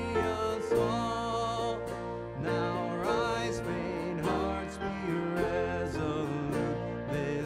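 A hymn sung with instrumental accompaniment, moving from one verse into the next.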